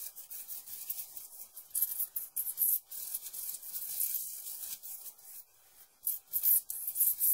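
Metal float and steel finishing trowels scraping back and forth over wet concrete sand mix in quick repeated strokes. The footage is sped up eightfold, which turns the scraping into a fast, high hiss. It pauses briefly a little past halfway.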